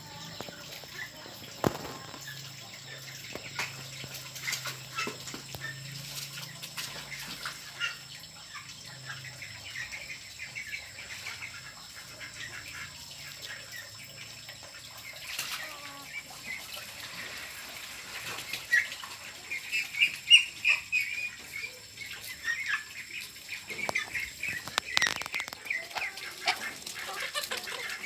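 Backyard ducks and chickens calling: short quacks and clucks, growing busier in the last third.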